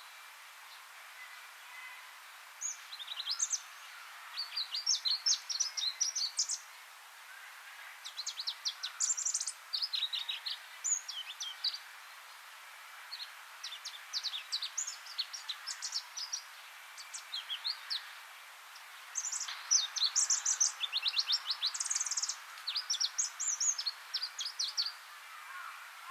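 Pallas's warbler singing: four long phrases of rapid, high, varied notes and trills, each lasting several seconds, with short pauses between them.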